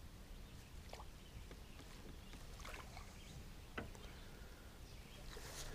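Faint water lapping and small knocks around a small aluminium boat, with a few light clicks.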